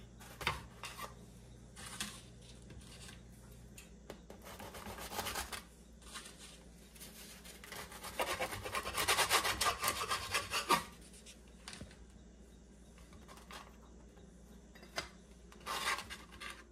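Knife cutting through a toasted bagel sandwich on a wooden cutting board: a rasping, sawing stretch of about three seconds from around eight seconds in, with scattered knocks and rustles of handling before and after.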